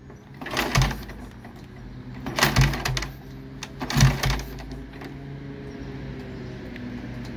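Kick-starting a 1939 Benelli 500 Sport single-cylinder motorcycle: three kicks, about half a second in, at two and a half seconds and at four seconds, each a short clatter of the engine turning over without catching. A steady low hum runs underneath.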